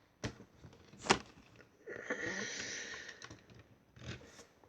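Handling of a Lego model: two sharp plastic clicks about a second apart, then about a second of rustling and a softer knock near the end.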